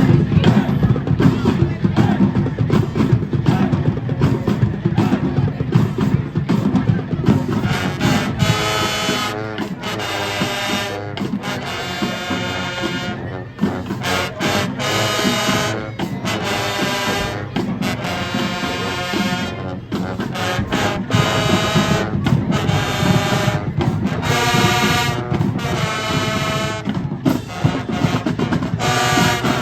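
Marching band playing its field show: percussion carries the first several seconds, then the brass section comes in about eight seconds in with loud held chords in repeated phrases over the drums.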